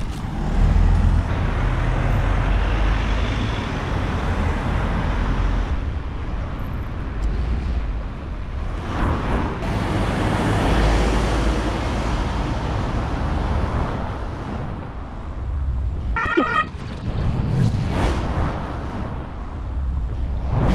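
Road traffic: cars passing close by one after another, their tyre and engine noise swelling as each goes past, most strongly about a second in and again around ten seconds in.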